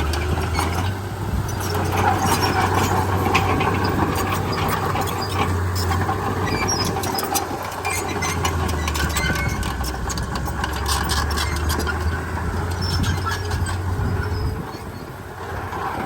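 Komatsu D31P crawler bulldozer's diesel engine running steadily, with squealing and clanking from its tracks and running gear. The engine eases off near the end.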